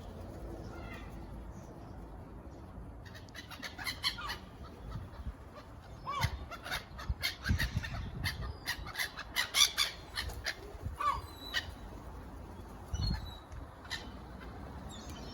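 A flock of birds calling. A dense run of short, sharp calls and squawks starts about three seconds in and thins out after about eleven seconds, with a few scattered calls near the end.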